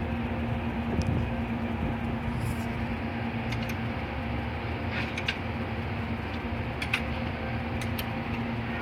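Honda XRM 125's single-cylinder four-stroke engine running at a steady idle, with a constant hum and a few light clicks scattered through.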